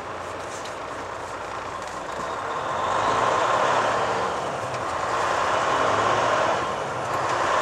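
Volvo 880 truck tractor's diesel engine and road noise heard from inside the cab as the truck drives in traffic, growing louder about two and a half seconds in as it pulls away and picks up speed.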